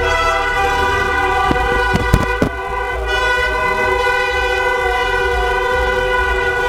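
Many car horns held down together in a continuous, steady blare: celebratory honking from a procession of cars. A few sharp cracks cut through about two seconds in.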